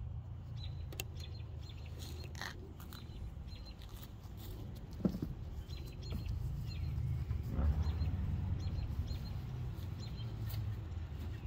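Small birds chirping, short high calls repeating on and off, over a steady low rumble. A single knock sounds about five seconds in.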